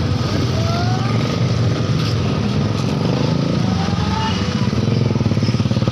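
A motorcycle engine running close by, a steady low drone that grows a little louder near the end.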